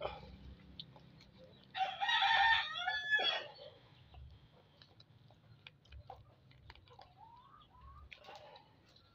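A rooster crows once, a call of about a second and a half starting about two seconds in. Faint rustles and ticks of banana leaf strips being tied around a leaf-wrapped fish run underneath.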